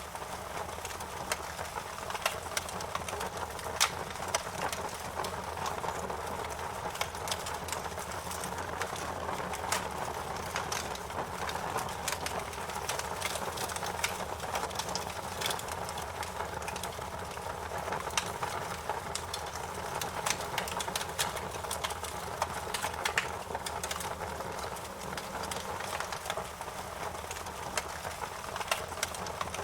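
Wood fire crackling in a fireplace: a constant hiss of burning with frequent sharp, irregular pops and snaps.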